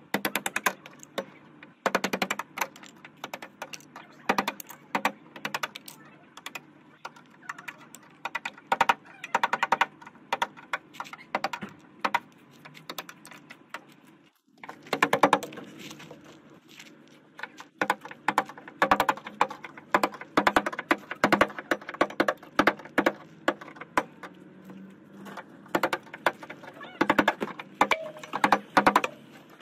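A screwdriver tip prying at rust-blistered paint on a car door, the loose paint cracking and flaking away in quick, irregular clicks and crackles, with a brief pause about halfway. The paint is lifting because of rust spreading beneath it.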